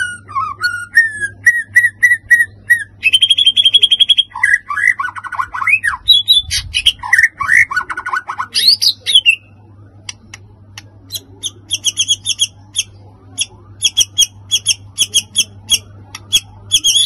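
White-rumped shama singing a loud, varied song. It runs through repeated gliding whistles, a held note, swooping phrases and a rising note, then after a brief gap of sharp ticks goes into rapid runs of short, high notes. A faint steady low hum lies under it.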